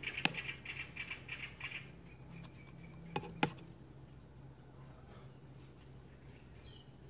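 Faint scratching and small clicks of a thin pick working a little lock washer onto the drain-valve fitting of a plasma cutter's air regulator: a sharp click just after the start and two more a little past three seconds in. A faint steady low hum runs underneath.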